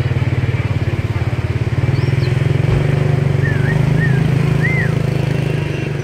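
An engine idling close by, a steady low rumble that is the loudest sound throughout. Over it a caged songbird whistles short looping notes: one high note about two seconds in, then three lower ones in the second half.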